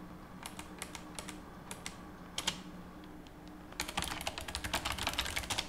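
Typing on a computer keyboard: a few scattered keystrokes, then a quick burst of rapid typing in the second half.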